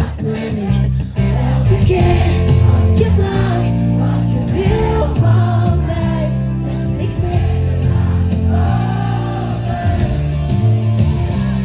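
Live pop band playing loud, with a woman singing lead into a handheld microphone over electric guitars and a strong bass line, recorded from the crowd.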